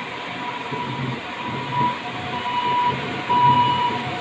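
Ambulance siren alternating between a high and a lower tone, growing louder in the second half, over the steady noise of heavy rain on a wet street.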